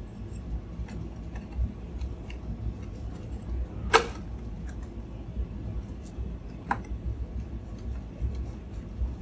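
Light clicks and taps of a metal lens board with a 90 mm lens being fitted into the wooden front standard of a large-format camera, with one sharp click about four seconds in and another near seven seconds.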